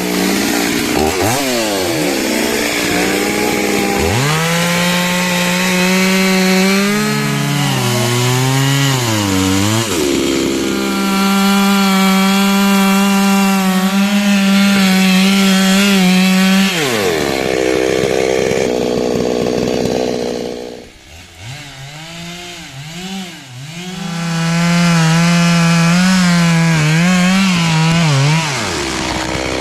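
Two-stroke Stihl chainsaw cutting wood, its engine revving up and down as it bites and eases off. It drops to a lower, quieter running for a few seconds about two-thirds of the way in, then revs up to full again.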